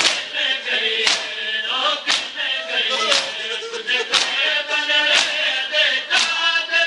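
Male voices chanting a noha while a crowd of men beat their chests in matam, the hand strikes landing together about once a second.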